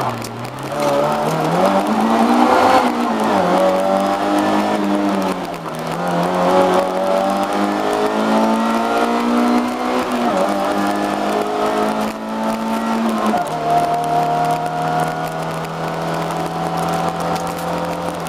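A Lada's 1.3-litre four-cylinder racing engine under hard driving, heard from inside the cabin. The revs climb and fall repeatedly, dropping sharply several times, then hold steady for the last few seconds.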